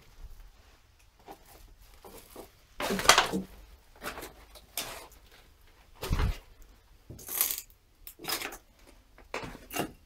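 Footsteps crunching and scraping over rubble and litter on the floor, in irregular steps about a second apart, with a heavier thud about six seconds in.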